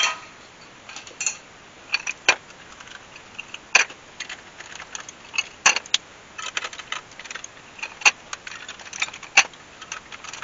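Metal parts of a steel chandelier knocked and handled, giving a run of irregular sharp metallic clinks and light rattles. The loudest clink comes right at the start.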